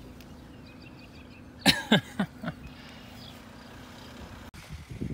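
An animal calling: four quick, loud calls, each falling in pitch, over a steady low hum.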